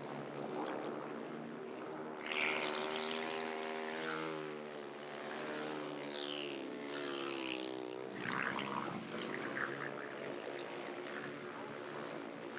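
Speedway motorcycle engine running hard on the track, its pitch rising and falling every few seconds.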